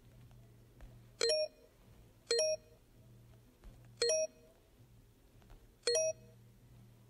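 Short electronic beeps from a phone colour-spotting game, one for each correct tap on the odd-coloured tile: four in all, one to two seconds apart. A faint steady hum runs underneath.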